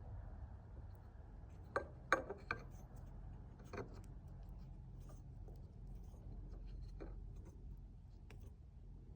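A few light clicks and knocks of metal clutch parts being handled and fitted together, spaced irregularly over a low steady hum, with the clearest cluster about two seconds in.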